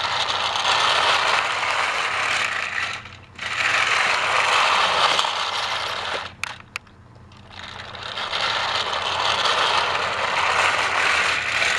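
Motorised Trackmaster toy train running on plastic track, its small geared motor whirring and rattling with the trucks clattering behind it. The sound swells and fades three times as it goes past close by, with a couple of sharp clicks in the second lull.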